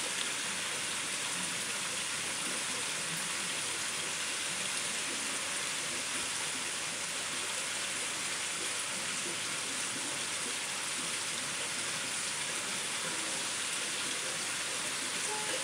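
Water pouring steadily into a koi pond from a small spillway, a constant splashing hiss.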